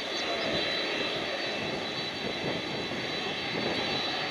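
Jet engines of an ANA Cargo Boeing 767 freighter running as it rolls along the runway: a steady rush of jet noise with a thin high whine over it.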